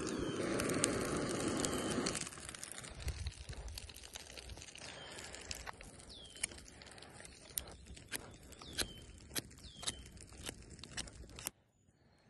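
Wood campfire crackling: a louder rushing noise for the first two seconds, then sharp, irregular pops and snaps. The sound cuts off suddenly near the end.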